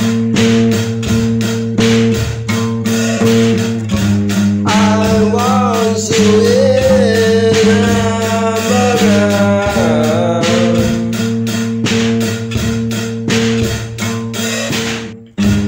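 A song with a steady beat and sustained chords. A bending melody line comes in about five seconds in and fades around ten seconds, and the music drops out for a moment just before the end.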